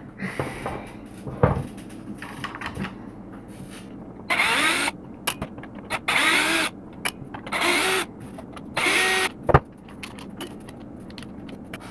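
Cordless drill/driver backing out the screws that hold the front end on an RC truck chassis, in four short runs of under a second each, the motor's pitch bending up within each run. Small clicks and handling knocks come between the runs, with a sharper knock near the end.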